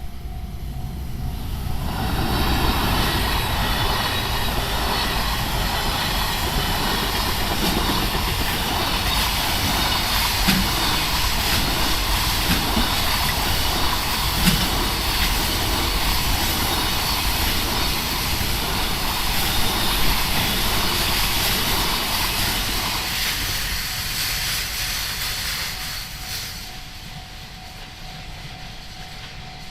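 Freight train hauled by an EF510 electric locomotive passing over a level crossing at close range. Its rolling noise swells about two seconds in, holds loud and steady as the container wagons go by, and fades away over the last few seconds. A level-crossing warning bell rings steadily underneath, heard plainly before the train noise builds and again as it dies away.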